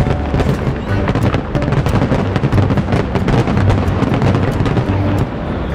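Fireworks bursting and crackling in rapid succession during a display, with music playing underneath.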